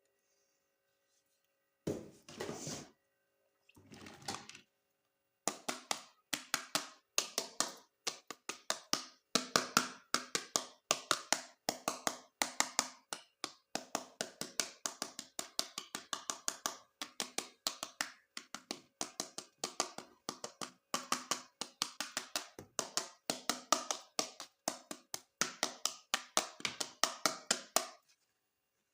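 Plastic toy parts and packaging being handled: a long run of quick clicks and taps, several a second, after two short rustling bursts.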